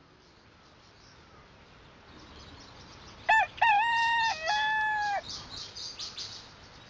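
A rooster crowing once, a cock-a-doodle-doo that begins about three seconds in with a short note and two long held ones. Small birds chirp around and after it.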